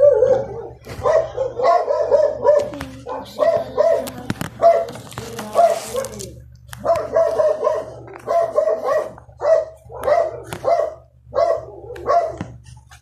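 Quick runs of short, high-pitched yaps from an animal, with a brief pause about six seconds in.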